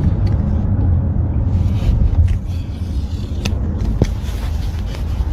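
Steady low rumble, like road noise inside a moving vehicle, with a couple of faint clicks near the middle.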